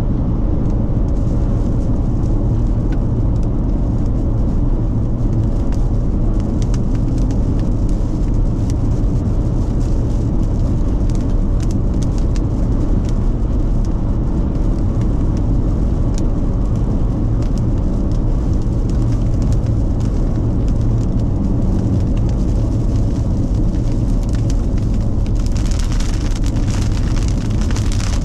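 Steady low rumble inside a car cabin, with raindrops ticking on the windshield. A few seconds before the end a louder hiss of rain sets in.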